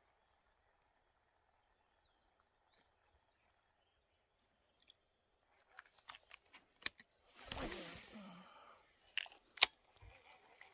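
Handling noise of fishing tackle: a few light clicks and knocks, a brief whooshing rustle about seven seconds in, then two sharp clicks near the end, the second the loudest.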